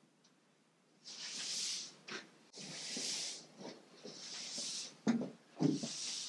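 A tack cloth swishes over the sanded cedar-strip kayak hull in four long wiping strokes, picking up dust before varnishing. There are two soft knocks about five seconds in.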